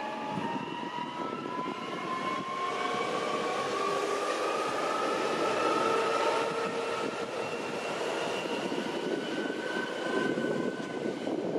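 Two coupled PESA Elf II 21WEa electric multiple units pulling away and accelerating past. Their traction drive gives a whine that rises slowly in pitch over the wheel and rail noise, louder as the train passes closest.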